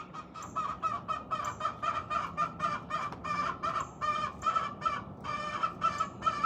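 Hen giving a rapid, repetitive high-pitched call, about three short calls a second, getting louder about a second in. It is the pre-laying call a hen makes to announce she has to lay an egg.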